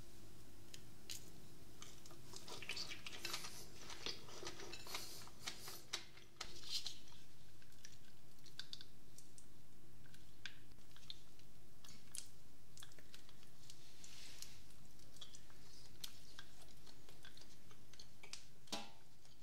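Scattered light clicks and taps of food handling: peeled kiwis being set down and moved on a ceramic plate. About six seconds in the background steps up to a steady hiss with only sparse ticks.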